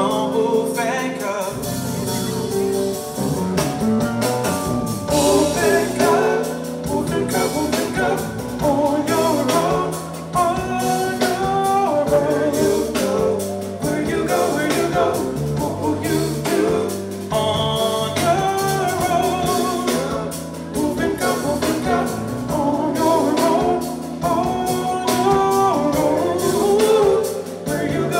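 Live band playing: a male voice singing over electric bass, drum kit and keyboards.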